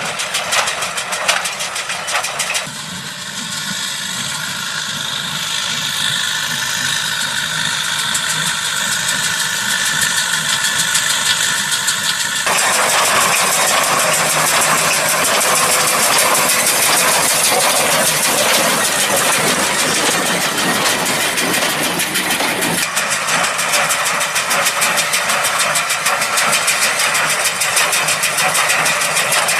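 New Holland TS100 tractor's diesel engine running under load as it drives a New Holland 575 small square baler, with the baler's steady mechanical clatter. The mix changes abruptly about three seconds in, again near the middle and again about two thirds of the way through.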